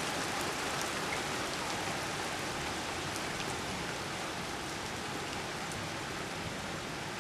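Steady rain from a thunderstorm falling, an even hiss with a few faint drop ticks.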